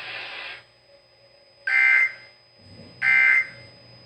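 Emergency Alert System end-of-message data signal: two identical short bursts of harsh two-tone digital data, about 1.3 seconds apart, marking the end of the alert message.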